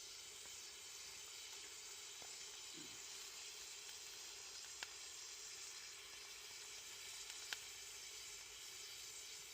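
Sukiyaki frying in a pan: a steady sizzle, with a couple of sharp ticks about halfway through and near the end.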